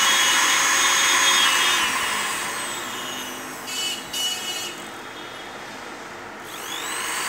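Usha 1/20 HP (110 W) domestic sewing machine motor running on its foot speed controller with a steady whine. About two seconds in its pitch glides down as it slows, with two short bursts of sound around four seconds in. Near the end the whine rises again as it speeds back up.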